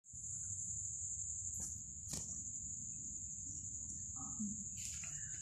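Steady high-pitched insect trill, held unbroken, over a low rumble, with a few sharp clicks at about one and a half seconds, two seconds and near the end.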